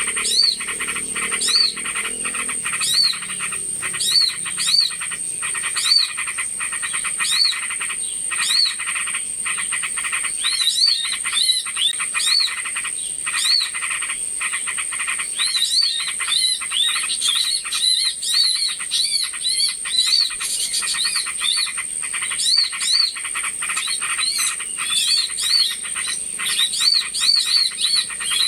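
Bird-lure recording of small birds calling: short, high, arched chirps repeated over a dense ticking chatter, growing busier from about ten seconds in, over a steady high-pitched whine.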